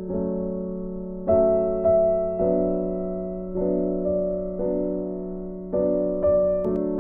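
Background music: a slow piano piece of sustained chords, each struck and left to fade, with a new chord roughly every second.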